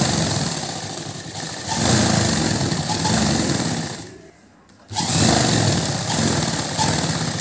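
Sewing machine running, stitching a seam through fabric; it stops for about a second about four seconds in, then runs again.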